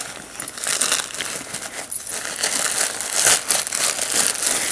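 Crinkly packing stuffing being pulled out of a leather handbag by hand: continuous crumpling and rustling with many short crackles.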